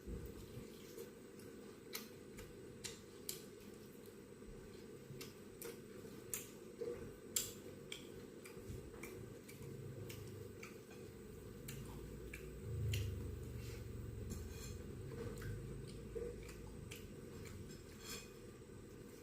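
Close-up eating sounds: chewing a mouthful of rice, chicken curry and omelette, with scattered sharp clicks and smacks, the loudest about seven seconds in, and a soft low rumble around twelve to sixteen seconds.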